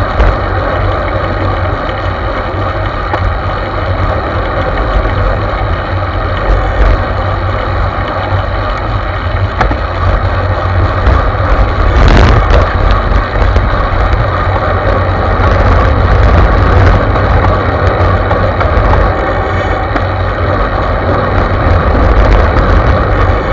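Steady low rumble of wind buffeting a bike-mounted camera's microphone, with tyre and road noise from a road bike riding along. A single knock about twelve seconds in.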